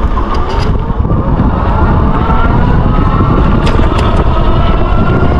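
Wind rushing over the microphone as an electric bike pulls away from a stop on throttle. Underneath, a faint motor whine rises steadily in pitch as the bike picks up speed.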